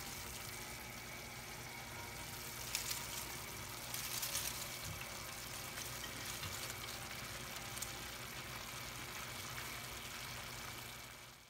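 Vegetables frying in a stainless steel wok with a steady, faint sizzle, broken by a few brief louder crackles a few seconds in.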